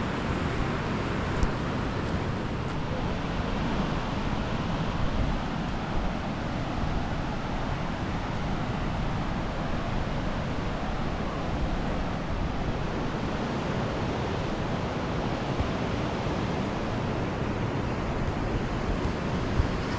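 Steady, even rushing outdoor noise with a few faint knocks.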